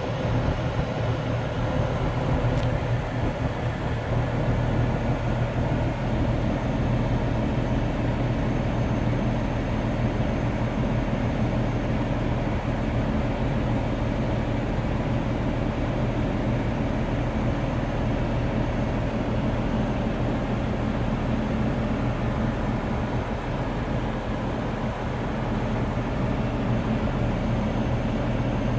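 Semi-truck's diesel engine running steadily, heard from inside the cab.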